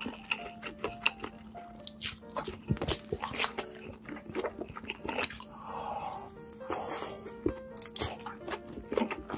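Close-miked eating: crunchy bites and chewing of a sausage dipped in cheese sauce, with wet squishy mouth sounds in the middle. Background music with a light melody plays throughout.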